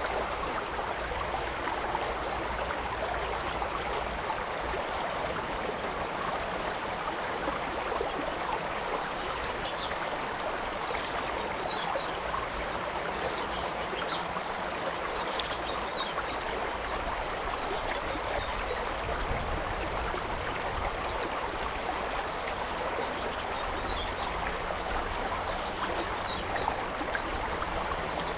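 Mountain stream water flowing over rocks: a steady rushing and gurgling that holds an even level throughout.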